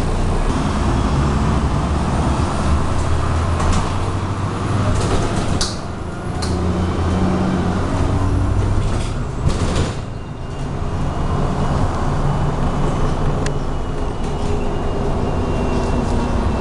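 MAZ-107 city bus driving, heard from inside the cabin: a steady low diesel engine rumble and road noise, with the engine note shifting as it pulls away and changes speed. A few sharp clicks or rattles come from the cabin along the way.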